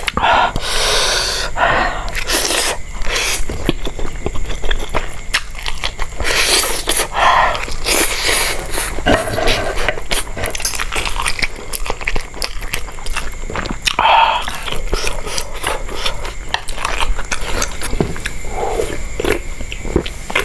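Close-miked eating of river lobster and spicy noodles: wet chewing and mouth sounds with frequent sharp clicks and cracks, broken by a few longer slurping sounds.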